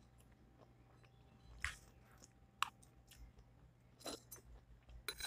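Quiet mouth sounds of someone chewing roast beef, with a few short, sharp clicks scattered through.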